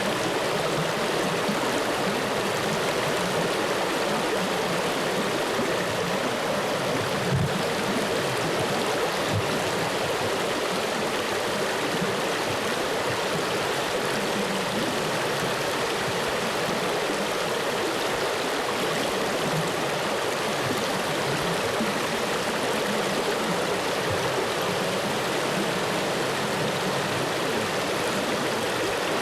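Flowing stream water, a steady rushing and babbling, with a brief low knock about seven seconds in.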